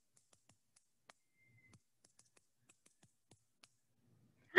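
Tiny seashells knocked together in the hands: a scatter of faint, sharp clicks at irregular spacing.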